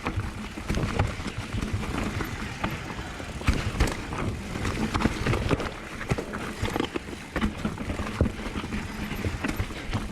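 Downhill mountain bike rattling and clattering over a rough, rocky trail at speed, with a continuous run of knocks from the tyres and frame striking rock.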